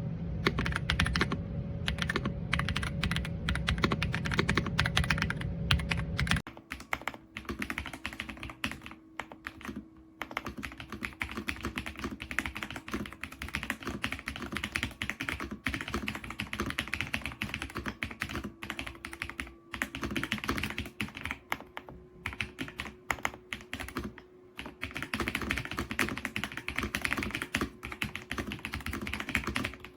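Rapid typing on an Ajazz AK820 Pro gasket-mounted mechanical keyboard: a dense, continuous run of key clicks. A low background hum under the typing stops about six seconds in.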